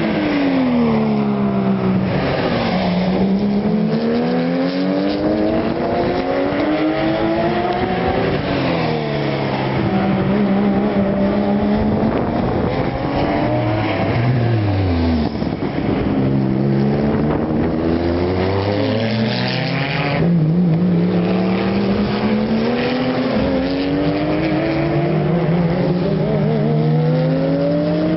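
Porsche 911 flat-six race cars passing one after another at full cry. Their engine notes keep sweeping down in pitch as each car goes by, then climbing again as it accelerates away, with more than one car often heard at once.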